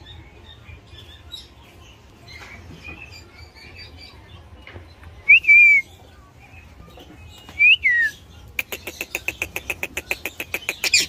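Indian ringneck parakeet calling. Soft chirps come first, then two loud whistled calls that rise and then fall, about two seconds apart. Near the end comes a fast run of short repeated notes, about six a second.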